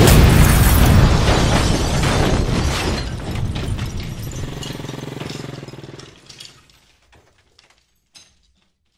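An explosion with shattering glass: a sudden loud blast, then glass and debris clattering down, fading over about six seconds into a few scattered clinks.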